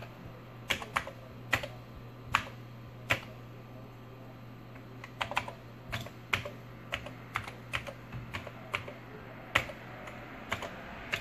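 Commodore 64 keyboard being typed on: irregular key clacks in short runs, with a pause of about two seconds partway through, over a steady low hum.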